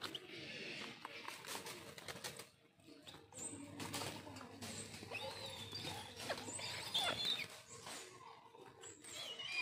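Raptors scuffling over food: feathers and wings rustling and scrabbling, with a few high, wavering calls about five to seven seconds in.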